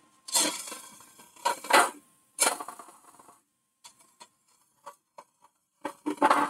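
Hollowing tool cutting inside a spinning holm oak hollow form on a wood lathe, in short bursts of chattering cuts that each fade quickly. A few light ticks follow in the middle, and cutting picks up again near the end.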